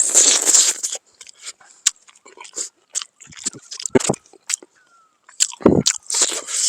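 A person biting and chewing pork close to the microphone, with irregular crunches and short bites, loudest near the start and again about two-thirds of the way in.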